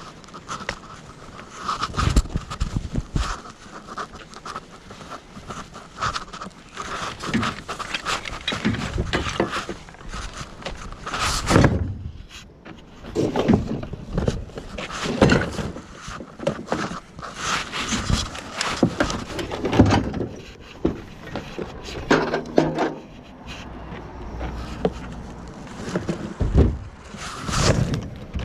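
Irregular knocking, clattering and scraping of hand work, with a faint steady whine in roughly the first half.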